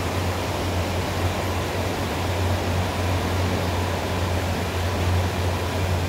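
Fast-flowing river rushing steadily, an even roar of water with a deep low rumble underneath.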